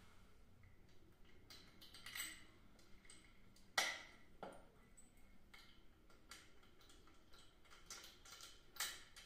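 Metal contact points of a power contactor being pushed by hand into its plastic housing: scattered faint clicks and taps of metal against plastic, with one sharp click a little under four seconds in.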